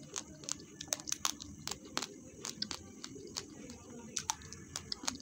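Raw basmati rice grains being chewed: a string of sharp, irregular crunches, several a second.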